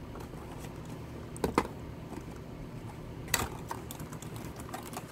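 A few sharp clicks and crinkles from a cardboard toy box and the plastic-bagged accessories in it being handled, with two louder clicks about a second and a half in and three and a half seconds in.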